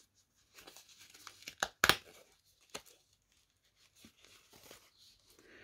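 Cardboard cross-stitch floss cards being pulled apart by hand: a quick run of papery rustles and small tearing clicks, with one sharp snap just before two seconds in, then a single click and faint card handling.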